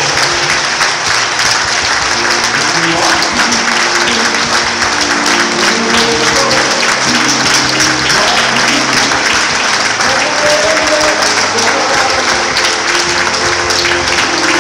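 Crowd applauding steadily for the walkers, with music playing underneath.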